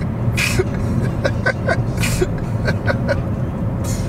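Breathy, wheezing laughter in three gusts, about a second and a half apart, with small voiced squeaks between them, over the steady low rumble of a car cabin on the move.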